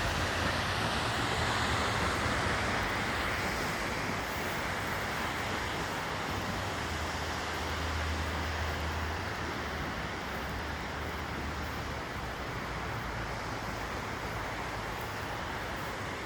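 Waterfall: a steady, continuous rush of falling water.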